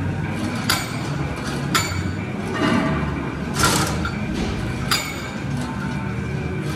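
Metal clinks from a seated press machine's weight stack and frame as the handles are pushed and lowered through reps: four sharp clinks spaced about a second apart, over a steady low rumble.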